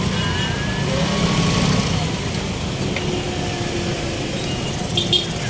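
Engine running steadily with a low hum, with a few brief sharp sounds near the end.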